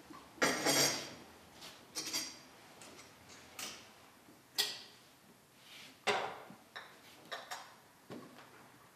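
Porcelain teacups and saucers clinking as tea things are handled: a string of irregular light clinks and taps, the loudest about half a second in and again around six seconds in.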